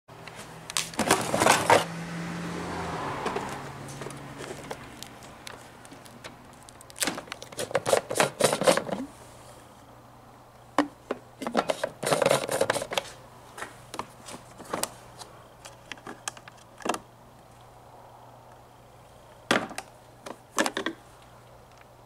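Plastic clicks, knocks and rattles from parts of a Black & Decker thermal carafe coffee maker being handled: the carafe and its screw-on lid, and the brew basket. They come in four short bursts, over a low steady hum.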